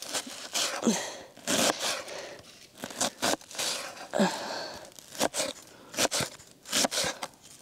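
A thick, heavy kitchen knife chopping onion finely on a board: quick, irregular crunching cuts that knock through to the board.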